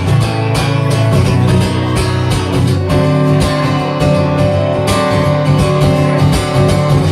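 Live band playing an instrumental passage of a song, with strummed guitar to the fore and no singing.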